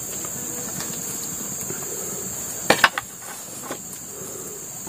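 Two sharp metallic clinks in quick succession about halfway through, then a fainter one, as a metal ladle is handled at a small steel wok. A steady high-pitched insect drone runs underneath.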